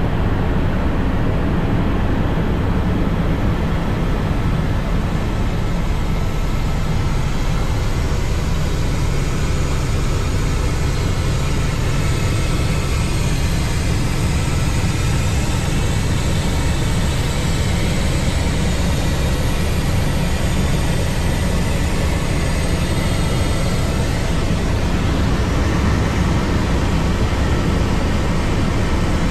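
Helicopter running steadily: a deep, even rotor and engine rumble with a few faint high steady turbine tones over it.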